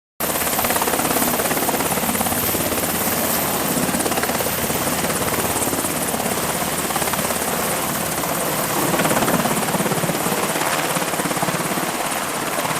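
Helicopter in flight: steady rotor and engine noise with a rapid, even blade chop, cutting in abruptly just after the start.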